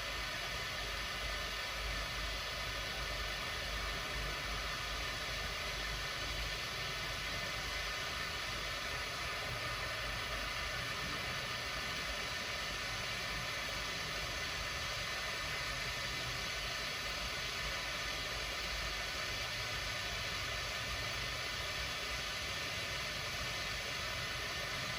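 MAP gas hand torch burning with a steady hiss, its flame held on a metal pin to heat it red hot.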